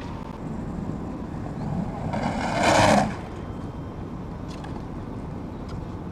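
Skateboard wheels rolling on concrete, a steady rumble, with one louder, brighter sound lasting about a second, a little over two seconds in.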